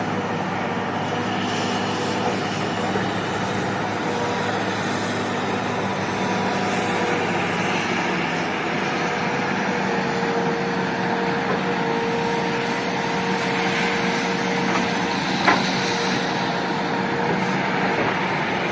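Large heavy machine running steadily, with a constant engine hum, and one sharp knock about fifteen seconds in.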